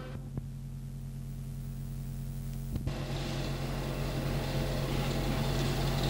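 Steady electrical hum with its overtones and hiss from an old film soundtrack, with a click about three seconds in after which the hiss grows louder.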